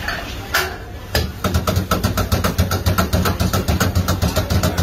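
Metal ladle rapidly knocking and scraping against a large kadai while tossing biryani rice, starting about a second in at about seven knocks a second, over a low hum.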